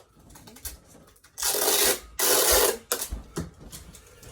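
Two loud rasping noises, each about half a second long, with light clicks and knocks around them: things being handled close to the microphone.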